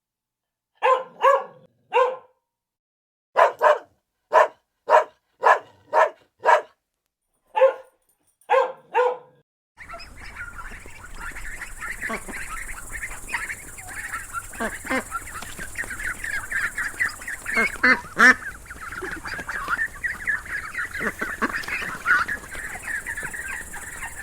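A dog barking about a dozen times in single barks and short runs, then, about ten seconds in, a flock of ducks quacking and calling over one another continuously.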